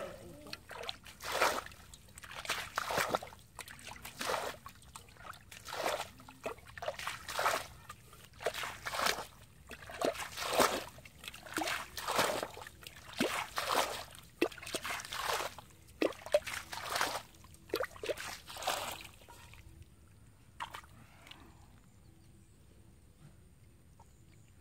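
Shallow water being splashed and sloshed, with irregular splashes one or two a second, typical of someone working by hand in a flooded rice field. The splashing stops about five seconds before the end.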